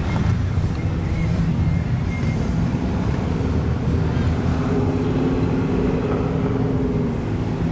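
Street traffic with car engines running as a steady low rumble and wind buffeting the microphone; an engine's tone comes up briefly past the middle.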